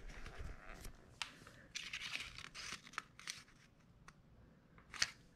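Faint crinkling and rustling of a thin plastic bag as it is handled, in a few short stretches, with light ticks in between.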